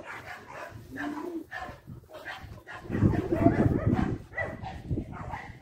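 A dog whimpering and barking, with the loudest stretch about three seconds in.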